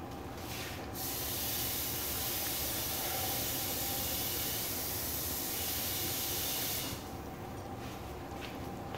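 Water running from a kitchen faucet into a pitcher, a steady hiss that starts about a second in and is shut off about six seconds later.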